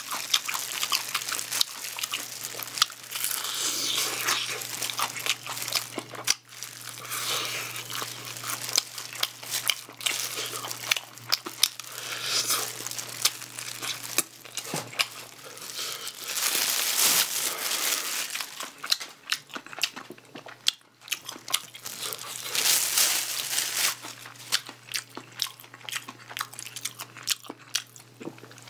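A person biting into and chewing sauced fried chicken close to the microphone: many short crisp clicks and wet chewing, with brief lulls about six and twenty-one seconds in.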